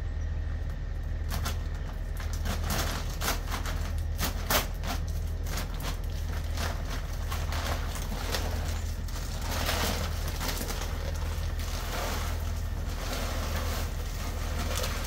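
Bag of alfalfa feed pellets being opened and crinkled, with quick rustles and clicks. Then, from about eight seconds in, the pellets pour out into a feed tote with a hissing rattle. A steady low hum runs underneath.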